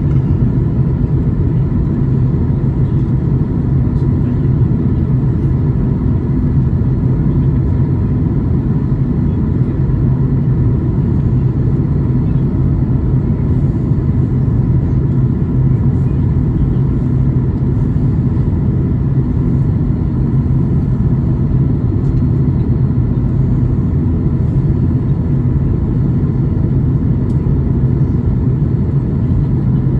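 Steady in-flight cabin drone of a Boeing 737 MAX 8, heard from inside the cabin: its CFM LEAP-1B turbofan engines and the airflow make a deep, even rumble, with a few faint steady tones above it.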